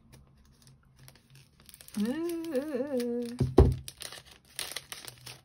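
A woman hums a short wavering phrase, then a single loud thump, followed by the crinkling and rustling of a cellophane bag as handmade paper tags are slid out of it.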